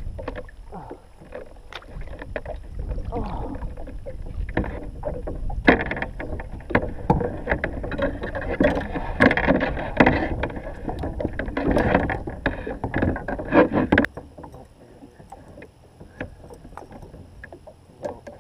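Kayak paddling: the paddle blades splash and dip in the water and the shaft knocks against the plastic kayak in irregular strokes as the kayak is backed up. The strokes are busiest and loudest in the middle, then drop away to a few light knocks about 14 seconds in.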